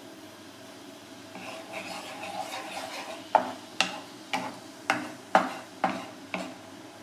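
Wooden spatula stirring bubbling liquid in a metal frying pan: a scraping stir at first, then seven sharp knocks of the spatula against the pan, about two a second.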